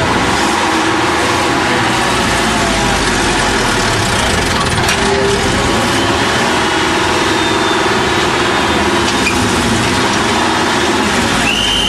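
Diesel engine of an IFA trial truck running steadily as the truck crawls through deep mud. A short, high, steady tone sounds near the end.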